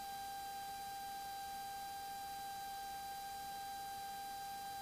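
Steady faint high-pitched electrical whine, one constant tone with fainter overtones, over a light hiss in the aircraft's intercom and radio audio feed between transmissions.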